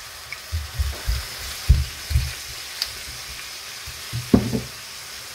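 Chicken breast and vegetables sizzling in a frying pan as white wine is poured in, a steady high hiss. Several dull low knocks come through, a cluster in the first two and a half seconds and a louder one a little past four seconds.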